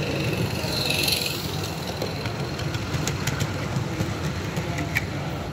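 Small live-steam garden-scale model locomotive running on the track, its steam exhaust going continuously, with a few sharp clicks in the last couple of seconds.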